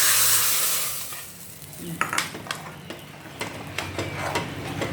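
Hot oil tempering of onion and curry leaves sizzling loudly as it is poured into a pot of chickpea curry, the sizzle fading within the first second and a half. A ladle then stirs it in, clicking and scraping against the pot.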